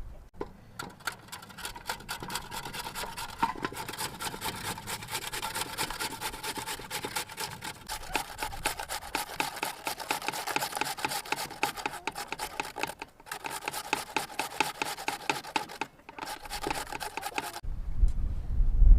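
Rapid, rhythmic metallic scraping, many strokes a second, with a ringing metal tone under it, as of a kitchen utensil working against a metal bowl or grater. It stops abruptly near the end.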